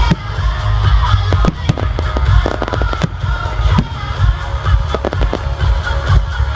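Fireworks display: a dense, rapid run of bangs and crackling with heavy low booms, over the show's music soundtrack.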